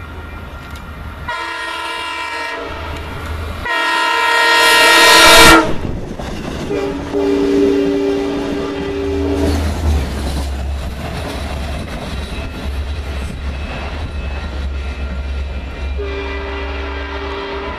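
Horn of a Long Island Rail Road bi-level push-pull train's cab car sounding two blasts as the train approaches, the second long, loudest and cut off about five and a half seconds in. The train then runs past with a low steady rumble from the diesel locomotive pushing at the rear, along with a steady two-note hum.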